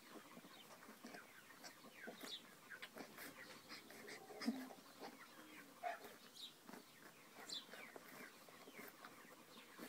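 Faint animal sounds: a scatter of short squeaks and chirps, with a louder low grunt about four and a half seconds in.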